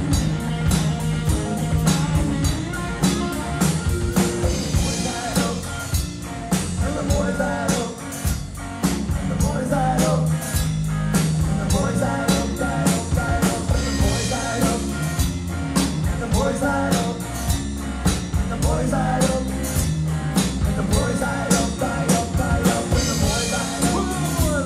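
Live rock band playing: electric guitar, bass guitar and drum kit keeping a steady beat, with a man singing.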